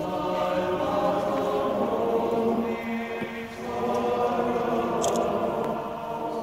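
Choir singing long held notes in two phrases, with a brief dip between them about halfway through.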